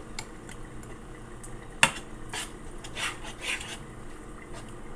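A spoon stirring a thick, melting cheese dip in a pot, scraping and clinking against the pot, with one sharp clink a little under two seconds in.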